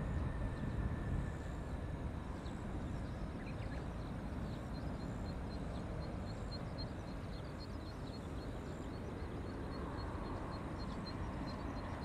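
Low, steady rumble of an Embraer E175's two General Electric CF34 turbofan engines, heard from a distance as the jet rolls out after touchdown and slows on the runway. A faint high engine whine fades away in the first second or two.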